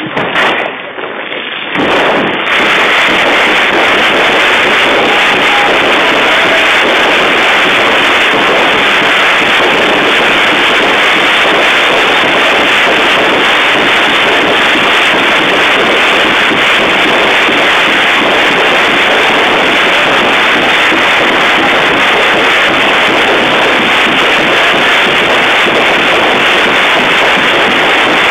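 Flowerbed ground firework going off: after a few short bursts, a very loud, dense, unbroken crackle of many spark fountains and crackling stars starts about two seconds in and holds steady.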